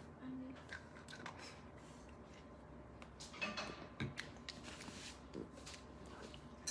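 Quiet room tone with a few faint clicks and rustles of small objects being handled, most of them a little past the middle.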